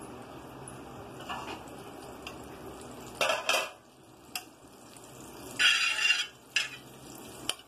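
Metal utensil clinking and scraping on an iron tava (griddle) as melting butter is spread across it, over a faint steady hiss. A couple of sharp clinks come about three seconds in, and the longest scrape about six seconds in.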